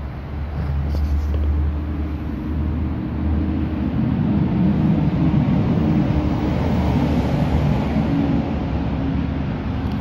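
Steady low rumble of road traffic, swelling to its loudest around the middle and easing off toward the end, as a vehicle goes by.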